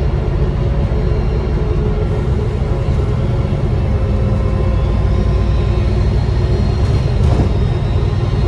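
Diesel bus engine running under way, heard from inside the passenger saloon as a steady low rumble, with a faint high turbocharger whistle coming in and rising slightly from about halfway through.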